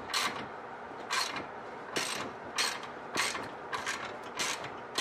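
Ratchet wrench tightening the bolts of a new wheel-bearing hub assembly from behind the steering knuckle: a short burst of pawl clicks on each back-swing, about every half-second to second.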